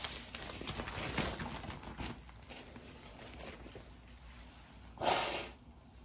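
Thin nylon pump sack rustling and crinkling faintly as it is spread open to fill with air, then one short breathy hiss about five seconds in.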